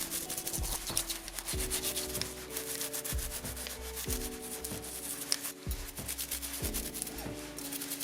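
A brush scrubbing an original Floyd Rose tremolo bridge with quick back-and-forth scratchy strokes to clean it, under quiet background music.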